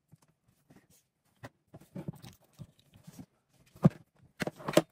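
Small parts of a Makita GA5030R angle grinder being handled during reassembly: scattered light clicks and taps of components and housing, with a sharper knock about four seconds in and a quick run of clicks near the end.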